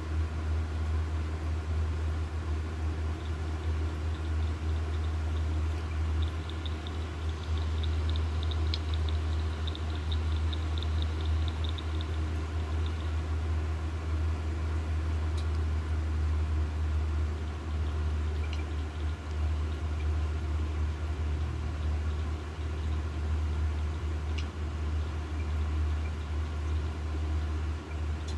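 A steady low mechanical hum or rumble, with a run of quick light ticks between about six and twelve seconds in.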